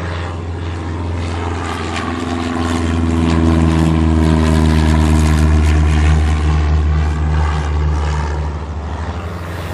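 Small single-engine propeller airplane taking off and passing by, its engine and propeller drone growing louder to a peak about halfway through, then fading as it climbs away.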